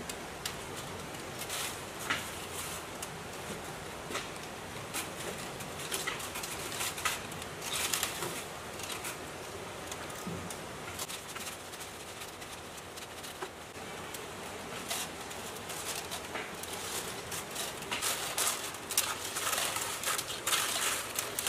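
Copper winding wire being wound by hand onto coil formers on a hand-cranked coil winding machine: irregular soft rustling of the wire with scattered light clicks.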